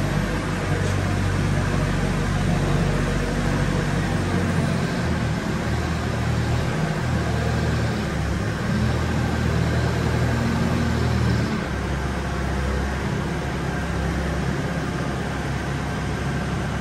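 JLG telehandler engine running steadily, its low pitch shifting up and down in steps as the machine is worked.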